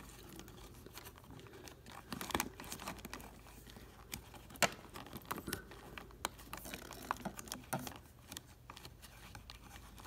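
Fingers handling a bundle of thin refrigerator-door wires and their rubber sheath: scattered soft clicks and rustles at irregular times.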